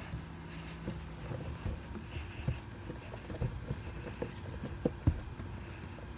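Clumps of damp dirt tipped from a small plastic tub, dropping and sliding onto the floor of a hard plastic bin as irregular soft thuds and knocks, the loudest about five seconds in.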